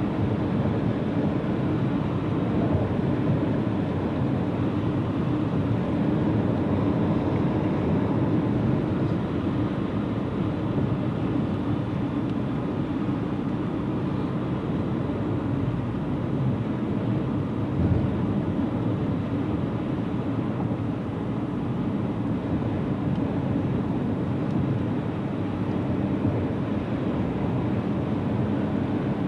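Steady road and engine noise inside a car driving at highway speed, with one brief thump about eighteen seconds in.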